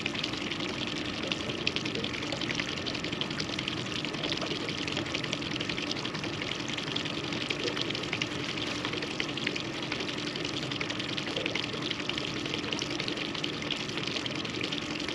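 River water lapping and splashing against the boat's hull: a steady wash with many small splashes, and a faint low hum underneath.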